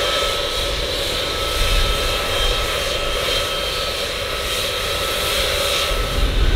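Gulfstream G600's twin Pratt & Whitney PW815GA turbofans running at taxi power: a steady jet roar with a high whine over a low rumble. About six seconds in, the low rumble grows louder.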